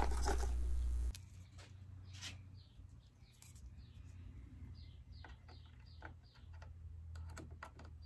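Faint light clicks and taps of a memory module being handled and set into the slot of a rack-mount NAS, with gloved fingers on the board. A low hum with noise runs at the start and cuts off abruptly about a second in. Short, high, bird-like chirps recur through the rest.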